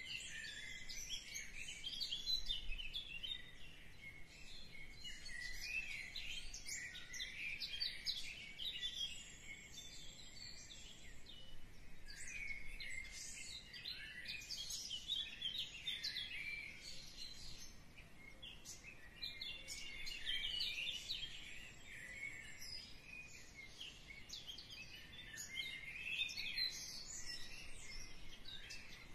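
A chorus of small birds chirping and twittering without pause, many short, high calls overlapping.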